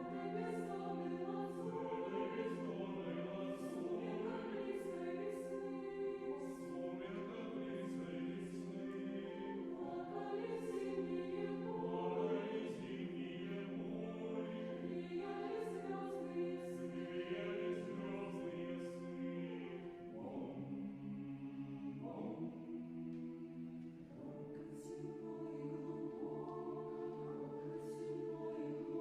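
Choir singing sustained chords in a contemporary choral piece, the held chords punctuated by crisp hissing consonants from the singers.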